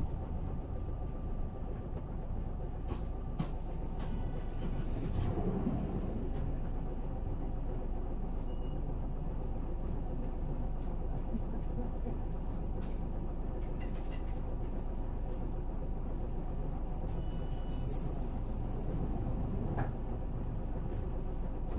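Hankyu city bus, car 714, heard from inside the cabin while running: a steady engine and road noise, with a few faint clicks.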